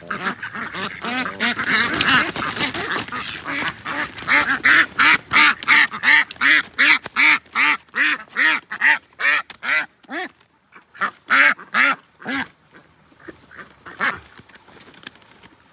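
A domestic duck quacking loudly in alarm as it is caught and held: at first several calls overlap, then a rapid, regular run of harsh quacks, two or three a second. About two-thirds of the way through the quacking stops briefly, then comes back as a few more quacks that thin out.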